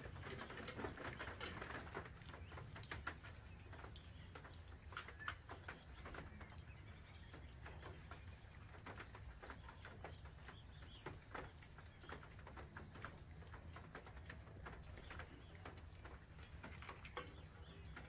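Quiet clicks and light metal taps as an old kerosene heater is opened, with matches struck to light its wick.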